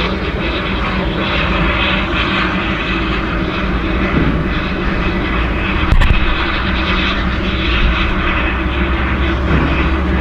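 Steady hiss and rumble of steam from a standing 1875 narrow-gauge, wood-burning steam locomotive, with one sharp click about six seconds in.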